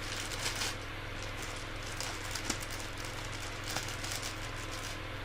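Costume packaging being handled: irregular crinkling and rustling over a faint steady low hum.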